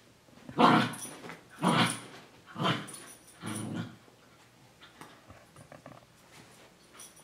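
Cockapoo barking four times in play, about a second apart, each bark short and loud.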